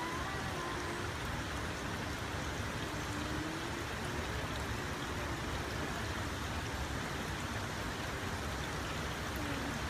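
Steady rush of water pouring through the canal lock's gate sluices as the lock chamber fills.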